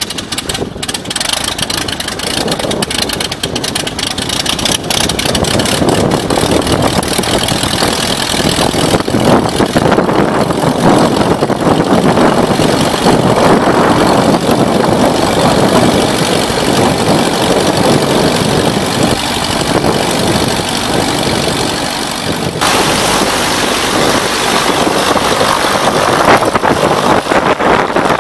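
Great Lakes 2T-1A-2 biplane's four-cylinder Lycoming engine running steadily on the ground with the propeller turning, at idle and then a little louder near the end as the aircraft moves off to taxi.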